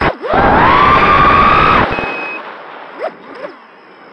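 Four ZMX Fusions 2206 2300kV brushless motors on an FPV racing quadcopter, spinning DAL 5040 tri-blade props, screaming as the throttle is punched: a short blip, then a whine that rises in pitch and holds for about a second and a half. The throttle then drops to low and the sound falls away, with two brief blips near the end.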